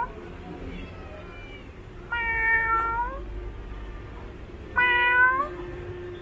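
Long-haired orange domestic cat meowing: a faint meow about a second in, then two loud meows, the first about two seconds in and the second about five seconds in.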